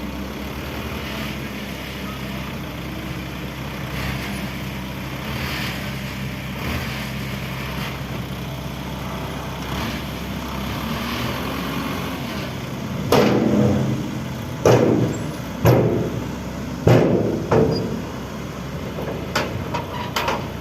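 Heavy diesel engine of an excavator or dump truck running steadily. About two-thirds of the way through come five or six loud knocks, then a few lighter clicks.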